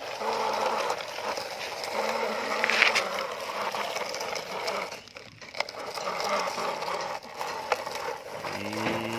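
Plastic toy dump truck pushed by hand over wet sand and gravel: its wheels and load give a steady rattling crunch, with a short lull about five seconds in.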